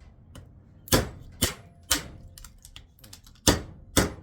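Hammer striking a chisel to crack apart a small transformer and free its copper winding: five sharp metallic blows, three in quick succession about a second in, then a pause and two more near the end.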